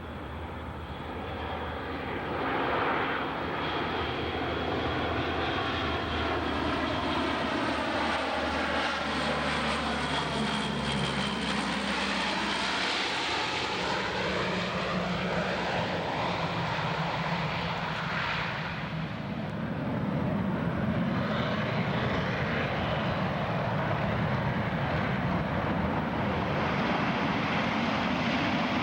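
A fixed-wing aircraft's engines running as it flies past, the sound sweeping down and back up in pitch as it passes overhead, with a steady low engine hum beneath.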